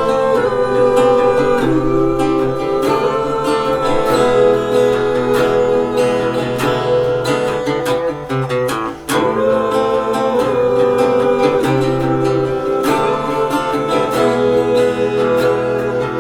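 Instrumental intro of a rock song played live, led by strummed acoustic guitar, with a short break about nine seconds in.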